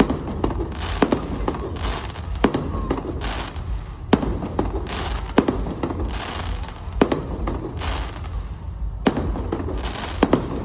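Aerial fireworks display: a run of sharp bangs, roughly one a second, with crackling between them and a steady low rumble underneath.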